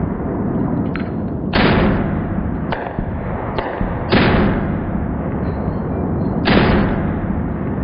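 Three pistol shots about two and a half seconds apart, heard from near the target, with a few fainter clicks between them.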